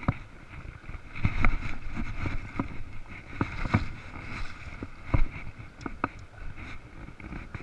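Water sloshing and splashing around a wader's legs while wading a shallow, rocky river, with irregular knocks and thumps, over the steady rush of the river.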